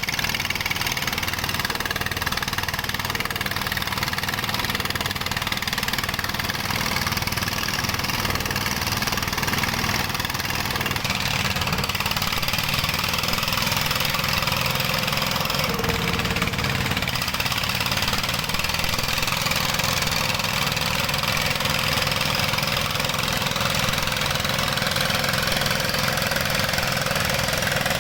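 Dongfeng stationary diesel engine running steadily at a small-scale gold mine, with a knocking diesel beat.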